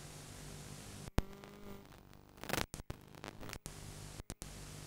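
Faint hiss and low hum from a blank stretch of home videotape, broken by a few sharp clicks and brief dropouts.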